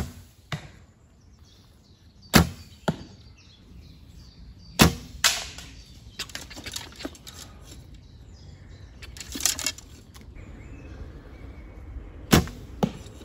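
Traditional bow being shot four times. Each shot is a sharp snap of the released string, followed about half a second later by a fainter knock as the arrow strikes a 3D foam target down the course.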